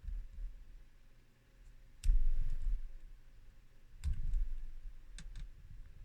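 Lock pick and tension wrench working the pins of a five-pin Yale pin-tumbler lock: scattered small metallic clicks, with a stronger click about two seconds in and a few more between four and five and a half seconds.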